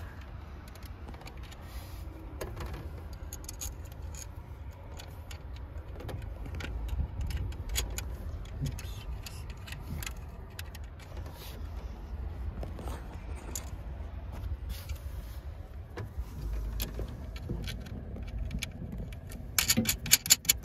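Small metal parts and tools being handled, giving scattered clicks and clinks over a steady low rumble, with a quick run of loud metallic jingling clicks near the end.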